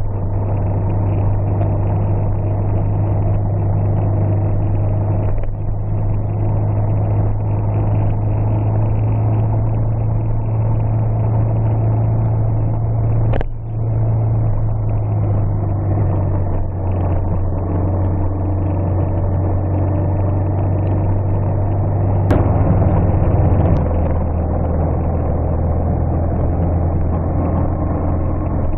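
Car engine droning steadily with tyre noise on a gravel road, heard from inside the cabin. There is a sharp knock near the middle and another about three quarters of the way through, and the engine's drone settles a little lower in pitch near the end.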